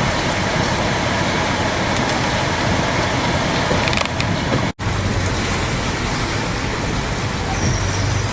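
Steady noise of a van driving through a heavy rainstorm and floodwater, with rain and water over the running engine. The sound cuts out for an instant about halfway through, and a low steady hum is stronger after it.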